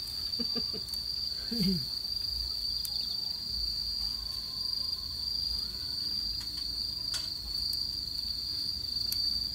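A chorus of crickets keeps up a steady, high-pitched chirring, with a few light clicks of metal tongs on the grill grate.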